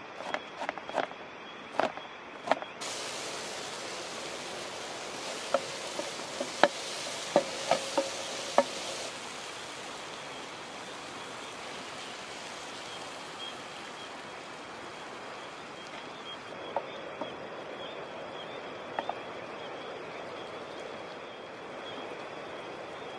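A knife chopping cabbage on a plastic cutting board, a run of sharp taps, then about three seconds in a steady frying hiss starts from a pan of vegetables on a gas camping stove, with a few clicks of a spoon; the hiss goes on more quietly after about nine seconds.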